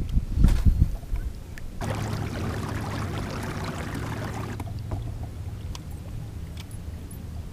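Fishing kayak moving across a lake: water rushing along the hull with a steady low hum, starting about two seconds in after a few low thumps.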